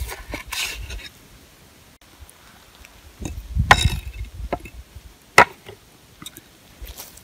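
A large broad-bladed knife slicing a tomato and knocking against a wooden cutting board, with a cluster of knocks and scrapes about halfway through and one sharp knock a little later, the loudest.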